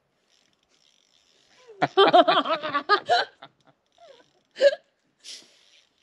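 A person laughing: a quick run of short laughs about two seconds in, then a single short vocal sound.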